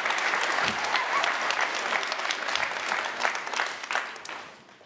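Audience clapping, a dense patter of claps that dies away near the end.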